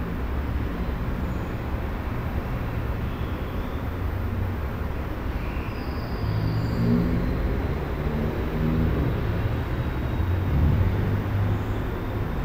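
Residential room tone: a steady low rumble and hiss. It swells a little about six seconds in and again near the end.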